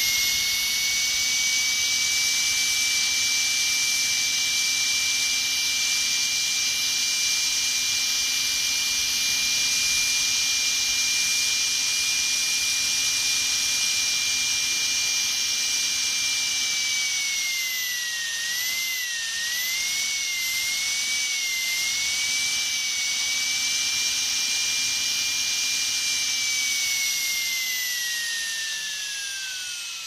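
Dentist's drill whining at a high, steady pitch. About two-thirds of the way through the pitch dips and wavers several times before settling again, and near the end it winds down, the pitch falling away.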